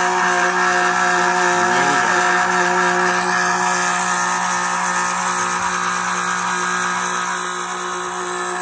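Electric oil transfer pump running steadily while it pumps fresh engine oil into the motorhome engine's oil fill. It makes a steady, constant-pitched motor hum and whine that eases slightly near the end.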